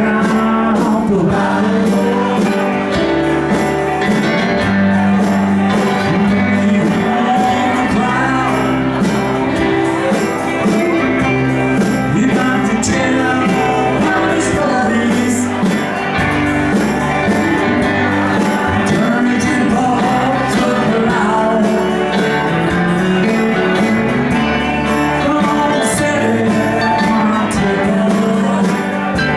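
Live country band playing: electric guitar, bass guitar and drums, with a man singing into the microphone.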